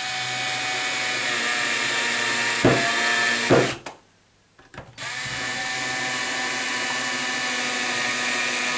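Cordless drill-driver driving screws into a plastic socket back plate. It runs with a steady motor whine for about three and a half seconds, with a couple of sharp knocks near the end of that run. After a short pause it runs steadily again for about four seconds.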